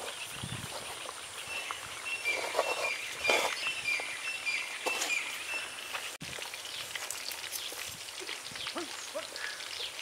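Birds chirping outdoors in short, repeated high notes, with occasional clicks and knocks.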